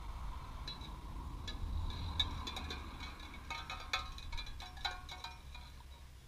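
Empty tin cans clinking and rattling against each other: a string of sharp metallic clinks with a ringing tone, coming thickest a little past halfway. A low rumble of wind on the microphone runs underneath.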